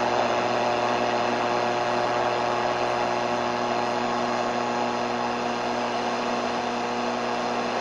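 A 4-band radio's speaker on the shortwave band giving out steady static hiss with a buzzing hum of several steady tones through it, no station clearly heard.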